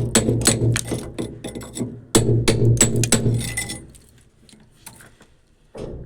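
Background music with a fast, clicking percussive beat over a pulsing bass line; it drops away to a quieter stretch for the last couple of seconds.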